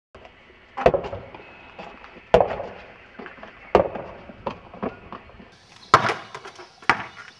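Basketball being dribbled on an outdoor court: five sharp thuds roughly a second to a second and a half apart, with fainter bounces between.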